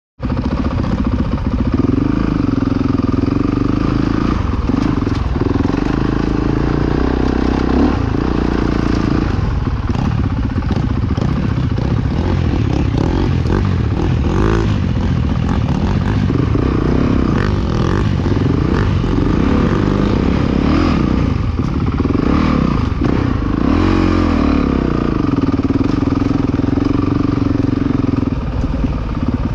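Honda dirt bike engine running at close range, holding a steady pitch for stretches near the start and near the end, with the revs rising and falling repeatedly in between. Knocks and rattles from the bike running over rough ground are mixed in.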